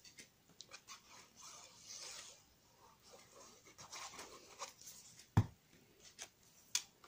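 Quiet rustling and rubbing of card paper being handled and pressed down while pieces are glued onto a card, with one sharp knock about five seconds in.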